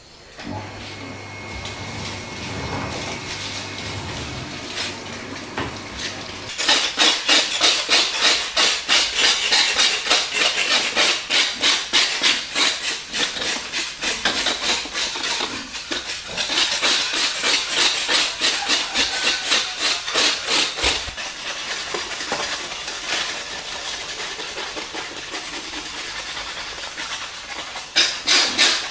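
Fast rhythmic scraping strokes, about five a second, of a hand tool worked over the crisp skin of a whole roasted pig hanging on a hook. They start about six seconds in, after a quieter stretch with a low hum, and go on with a few short breaks.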